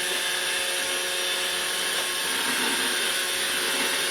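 iRobot Roomba robot vacuum running, its suction motor and brushes making a steady, noisy whir with a constant hum.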